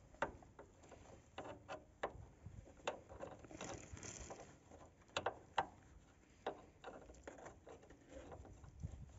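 Faint rustling and scattered sharp clicks as a plastic rope is pulled through and knotted by hand around a vehicle's rear leaf-spring mount.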